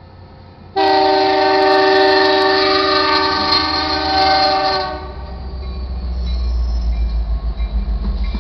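Horn of BNSF 9925, an EMD SD70MAC, sounding one long blast of about four seconds that starts and stops abruptly: a 'sick' horn whose chord sounds off. After it cuts off, the locomotive rumbles past over the crossing, growing louder.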